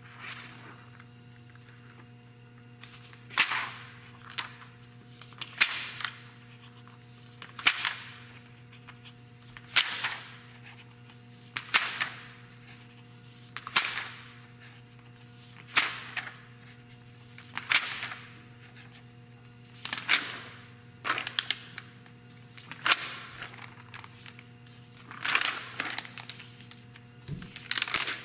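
Pages of a glossy magazine being turned one at a time, each turn a quick papery swish and flap, about every two seconds, over a steady low hum.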